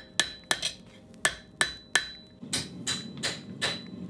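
Hammer blows on a steel bar being bent for a forged tool rack, about a dozen in all. Sharp, ringing strikes at an uneven pace in the first two seconds, then a quicker run of softer blows.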